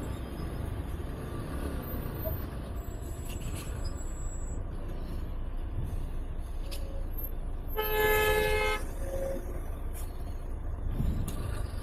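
Road traffic with a steady low engine rumble, and a vehicle horn sounding one steady note for about a second, about eight seconds in.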